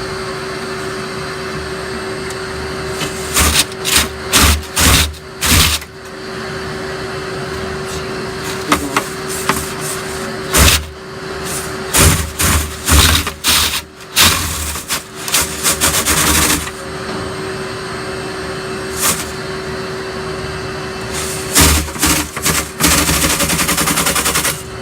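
Duct-cleaning vacuum running steadily with a held hum, broken by clusters of loud rattling clatter in the dryer vent duct, several times.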